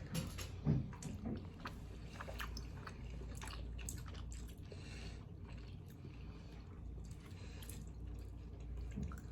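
People chewing mouthfuls of rigatoni in a creamy vodka sauce: soft, wet mouth sounds and small scattered clicks, over a faint low hum.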